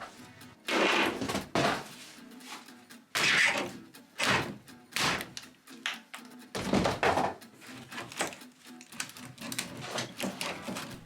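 Demolition work: irregular knocks, thuds and scraping as caravan interior panels are struck and torn out, about eight separate hits spread unevenly.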